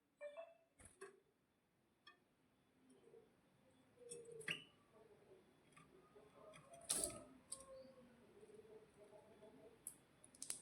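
Near silence in a pause between canary songs, broken by a few scattered soft clicks and ticks, the loudest about seven seconds in.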